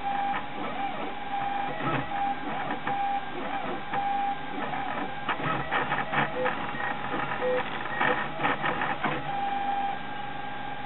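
Stepper motors of a home-built Prusa i3 3D printer running through a print. Short held tones come and go and change pitch with each move of the head and bed, with a flurry of rapid ticks a little past the middle.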